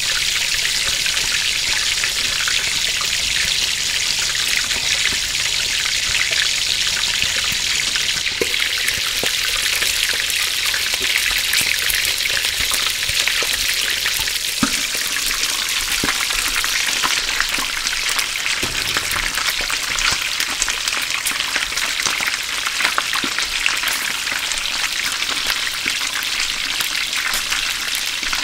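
French fries deep-frying in hot oil: a steady, dense sizzle full of fine crackles.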